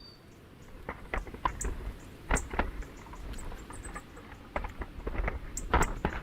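Irregular taps and clicks of animals feeding at a backyard feeder, unevenly spaced and sometimes in quick clusters, over a steady low outdoor rumble.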